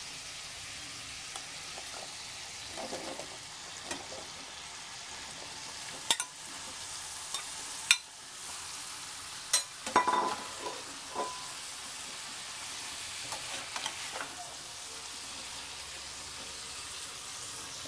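Spice paste and oil sizzling steadily in a metal pan while a metal spatula scrapes and stirs. There are a few sharp knocks from about six to ten seconds in, as cut arum stolons are tipped in from a bowl and pushed around the pan.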